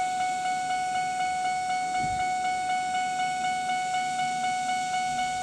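Electronic warning tone: one steady pitch with a light, fast flutter, starting abruptly and holding at an even level.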